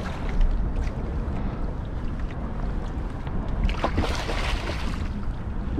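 Steady low wind rumble on the microphone, with a short splash about four seconds in as a hooked striped bass thrashes at the surface beside the kayak.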